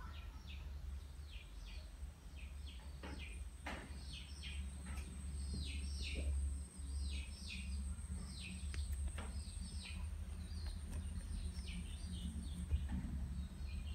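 Small birds chirping over and over in short, quick chirps that drop in pitch, over a steady low hum.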